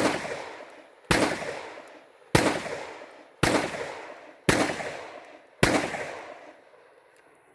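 Ekol Aras Magnum blank-firing pistol shooting blank cartridges: six shots at a steady pace of about one a second. Each shot is followed by a long fading echo.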